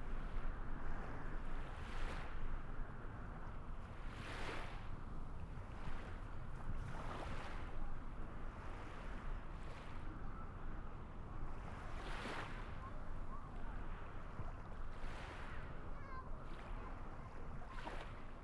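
Small waves washing in every two to three seconds over a steady low rumble of wind.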